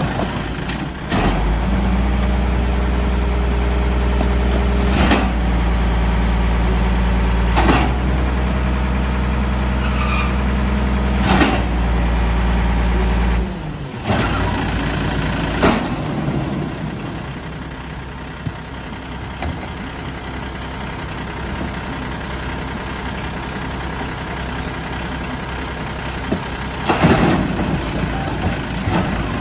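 Diesel engine of a 1996 Volvo WXLL garbage truck held at a steady raised speed while the Amrep side loader's hydraulic packer runs, with a few knocks, then dropping back to a lower idle about halfway through. Near the end, a cluster of knocks and bangs as cardboard is thrown into the side hopper over the idling engine.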